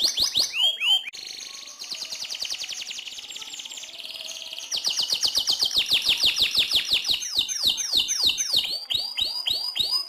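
Canary singing long rapid rolls of repeated notes. The rolls turn quieter for a few seconds and come back loud at about the halfway point, ending in a string of downward-sweeping whistled notes.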